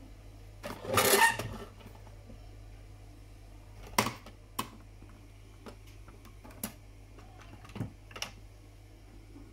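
Sharp plastic clicks and knocks from a toy spaceship being handled, with its red nose button pressed near the end. About a second in there is one louder noisy burst lasting about half a second.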